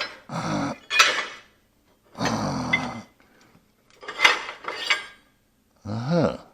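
Pieces of scrap steel clanking and scraping against each other as they are rummaged through and lifted, with a few grunts.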